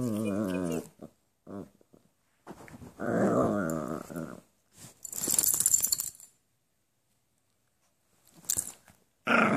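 A dog growling in bouts while play-biting a person's hand: a wavering growl at the start, a longer one about three seconds in, a short hissing noise around five seconds, then a pause and more growling near the end.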